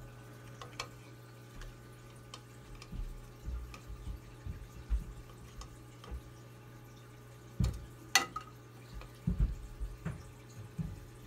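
Fish-room aquarium equipment: a steady low hum of pumps with water trickling and dripping from the filtration. Scattered clicks and low knocks sound over it, the sharpest click about eight seconds in.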